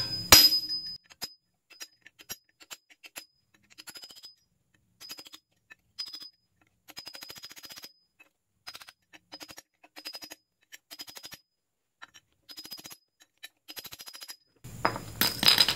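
A single hammer blow on a flat chisel against the Dana 30 front axle's steering knuckle at the very start. It is followed by repeated short runs of faint, rapid clicking from a ratchet wrench working on the knuckle.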